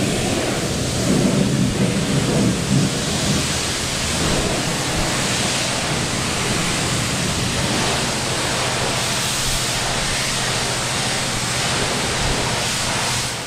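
Self-serve car wash high-pressure spray wand spraying water onto a car body: a steady, even spray noise, with a faint low hum underneath.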